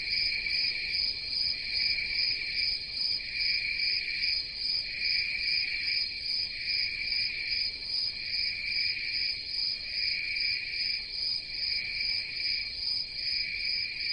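A steady chorus of crickets trilling high-pitched, in a soft pulse about once a second.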